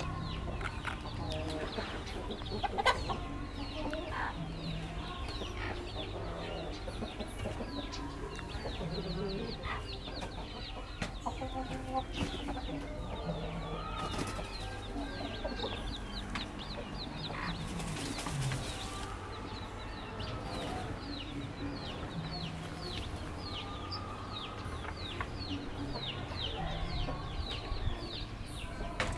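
Chickens clucking in a pen, with a busy run of short, high, falling chirps through most of it and a couple of brief rustles.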